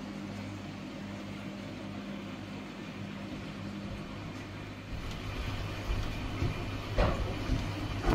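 Steady electric hum of aquarium air pumps and filters. From about five seconds in, low rumbling and knocks join it, with a sharp knock near seven seconds.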